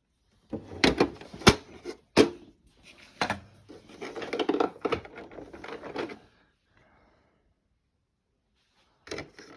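Hard plastic body of a large toy remote control car being handled: four sharp clicks and knocks in the first few seconds, then scuffing and rubbing of plastic that stops about six seconds in.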